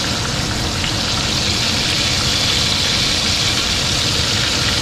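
Cornmeal-breaded fish fillets frying in hot oil in a skillet, a steady, even sizzle.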